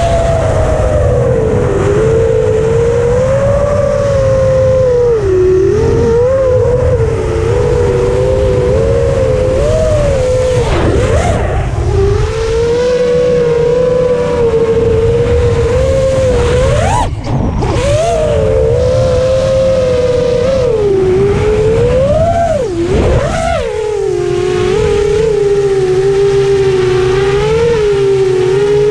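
Electric motors of radio-controlled aircraft whining, the pitch rising and falling with throttle and swooping sharply up and down twice in the second half.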